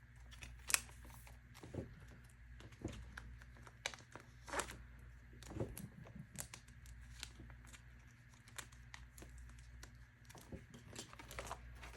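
Plastic binder pocket pages and photocard sleeves being handled: quiet, scattered crinkles and light taps as cards are slid into pockets.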